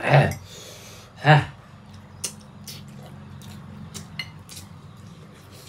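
Small clicks and taps of eating at a laden table: dishes, glasses and crisp pani puri shells being handled, over a low steady hum. Two short vocal sounds come near the start.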